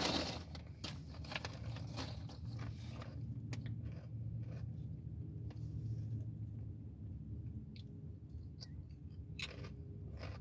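Close-up crunching and chewing of Nacho Cheese Bugles corn snacks, sharp crunches scattered throughout, loudest at the very start and again near the end. A steady low hum runs underneath.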